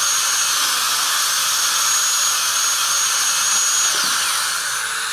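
Dental drill running with a steady high whine over a hiss, its pitch falling sharply about four seconds in as it spins down.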